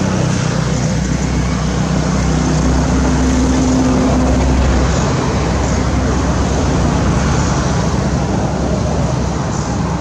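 A motor vehicle's engine running with road noise, the low hum swelling to about five seconds in and then easing off.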